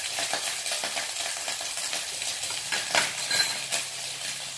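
Onion and smoked beef frying in butter in a frying pan on a portable gas stove, a steady sizzle with scattered small clicks and clinks.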